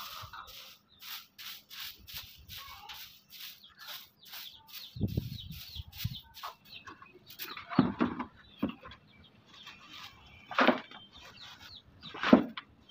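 Stiff twig broom sweeping dirt and litter from the floor of a wooden chicken coop, in quick brisk strokes about three a second, then a few slower, louder sweeps in the second half.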